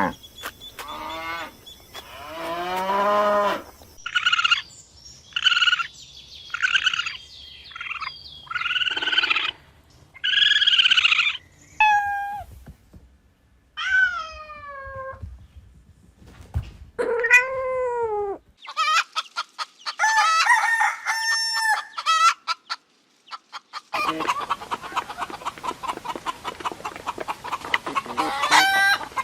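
A run of separate domestic fowl calls that changes every few seconds: chickens clucking and squawking, and a rooster crowing, with calls that slide down in pitch and fast pulsing clucks.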